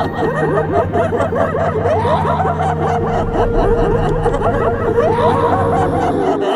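Several voices snickering and laughing at once in overlapping waves, over a low steady drone.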